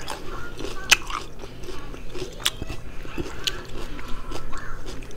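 A person chewing a mouthful of food close to the microphone, with a few sharp wet mouth clicks scattered through it.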